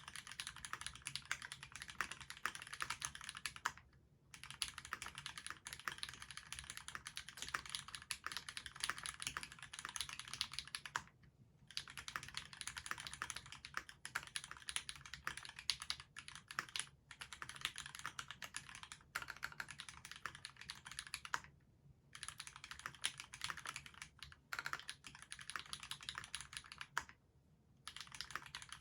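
Fast continuous typing on a Duck Octagon v3 mechanical keyboard with lubed Cherry retooled black linear switches, a stainless steel plate and GMK doubleshot ABS keycaps, the keystrokes clicking densely in long runs broken by a few short pauses.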